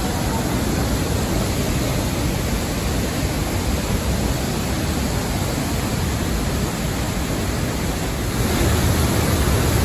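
Steady rush of a large waterfall pouring close by into a rocky gorge, swelling slightly near the end.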